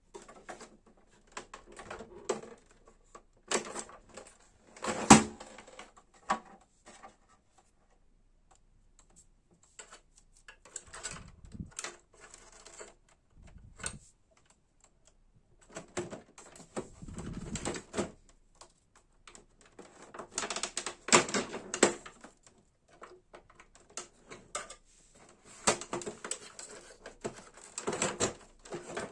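Irregular clicking and rattling of a Brother printer's plastic parts being handled and worked on, in several bursts with short pauses and a sharp knock about five seconds in.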